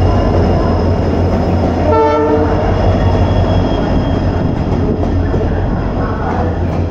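A pair of Indian Railways WDG4 diesel locomotives (EMD 710 two-stroke engines) rumbling past along the platform, with a short horn blast about two seconds in. Then the passenger coaches roll by.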